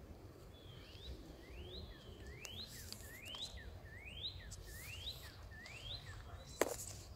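A bird calling: a series of about eight rising whistled notes, roughly three every two seconds, over a faint outdoor background. Near the end a single sharp click stands out.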